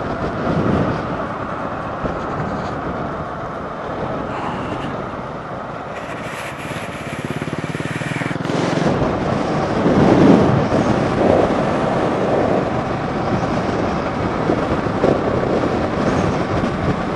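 Honda ADV150 scooter running on the move, its engine mixed with wind and road rush, getting somewhat louder about halfway through.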